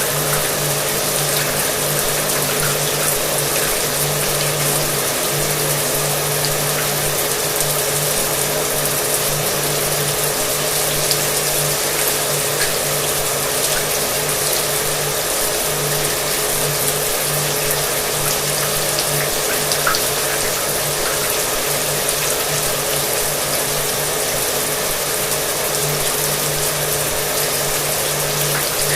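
Shower water spraying steadily, with a hair dryer running in the background, its motor adding a steady hum under the hiss of the water.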